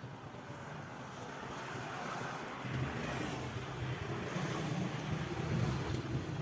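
Wind buffeting the microphone over open water, with a rushing noise that grows steadily louder.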